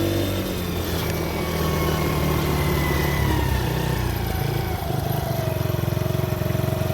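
Mini ATV engine running with the throttle opened, its pitch falling slowly and steadily as the revs come down. It pulls through its full throttle range after a Mikuni carburetor adjustment.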